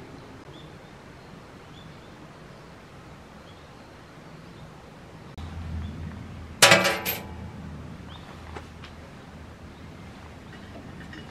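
A single loud metallic clink about two-thirds of the way in, ringing briefly before it dies away, over a quiet background with a few faint high chirps.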